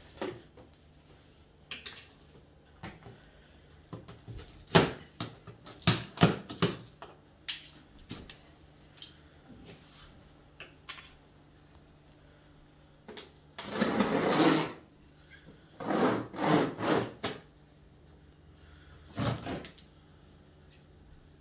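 Pointed hand tool scraping and jabbing at the taped seam of a large cardboard TV carton: irregular scratches and knocks, with a longer tearing scrape about halfway through and a quick cluster of scrapes soon after.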